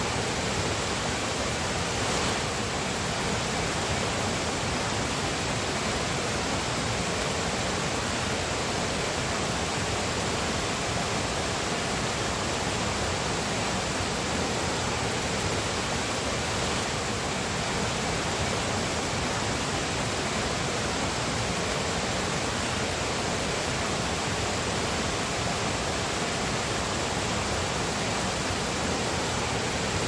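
Shallow rocky stream rushing over stones: a steady, even rush of water.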